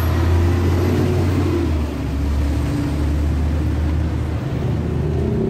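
Low, steady rumble of road traffic with a vehicle engine running close by, dipping briefly twice.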